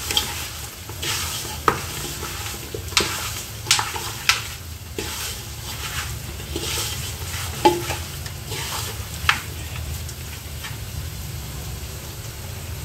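A hand mixing raw chicken pieces with spice powders and chopped mint and coriander in a metal pot: wet squishing and rubbing, with about five sharp knocks against the pot along the way.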